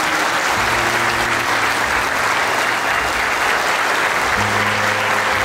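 A roomful of guests applauding steadily, with music playing underneath in held low notes.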